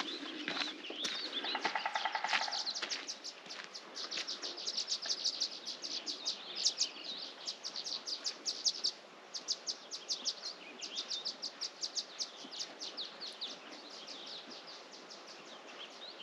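Birds chirping: long runs of short, high chirps repeating several times a second, with a brief buzzy rattling call about two seconds in.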